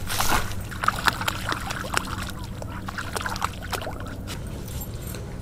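Two dogs wading through shallow lake water, their paws making quick small splashes and sloshes that thin out in the last second or so, over a steady low rumble.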